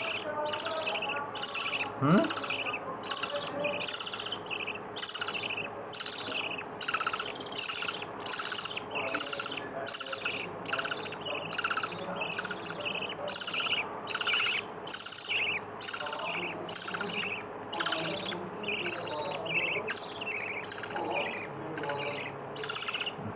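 Three-day-old lovebird chicks calling, high chirping calls repeated steadily at about three every two seconds.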